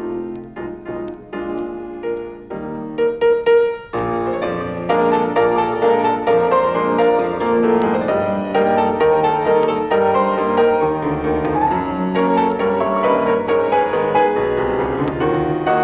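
Piano music accompaniment, becoming louder and fuller about four seconds in.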